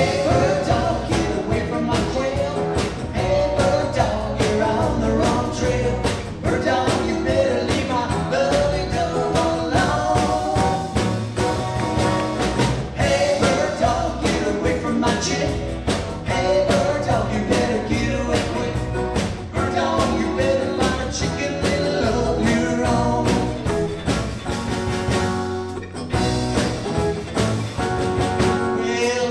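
Live band playing an upbeat rock and roll song, with singing over guitar and a steady drum beat.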